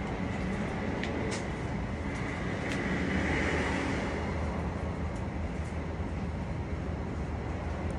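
Steady low mechanical rumble of running machinery, swelling a little about three seconds in, with a few light clicks.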